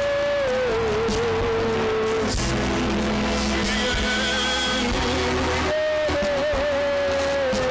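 Church worship music: voices singing over instrumental accompaniment, a lead voice holding long, wavering notes.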